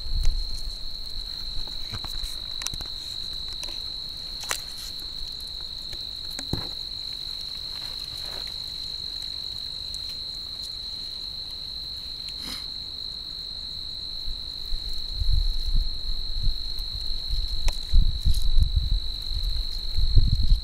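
A cricket trilling without a break, one steady high-pitched tone. Low rumbles join it in the last few seconds.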